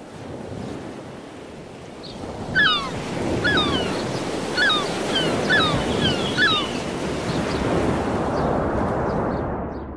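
Sea surf washing steadily, swelling in at the start and easing off near the end. A bird calls about seven times in the middle, short falling cries.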